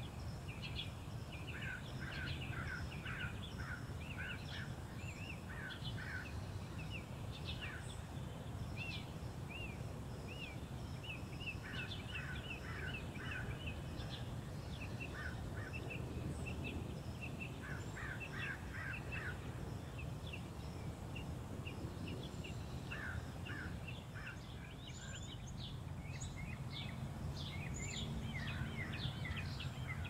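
Summer forest ambience: several small birds chirping and singing in quick runs of short repeated notes, over a steady low background rumble.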